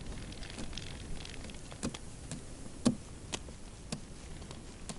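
Short light clicks and taps about twice a second over a low hiss, handling noise from a short winter jigging rod held in a gloved hand as the lure is worked under the ice.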